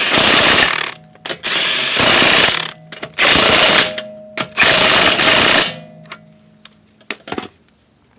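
Impact wrench hammering lug nuts onto a wheel in four short bursts of about a second each, the tool's motor humming down after each one. A few light clicks follow near the end.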